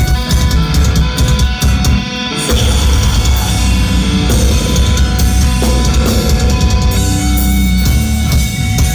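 Metalcore band playing live: distorted electric guitars, bass and a pounding drum kit, with a short break in the low end about two seconds in.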